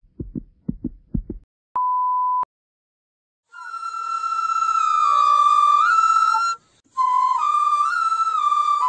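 A few short low thumps, then a single steady beep lasting under a second. After about a second of silence a solo flute melody begins, moving in small steps between held notes, with a brief break in the middle.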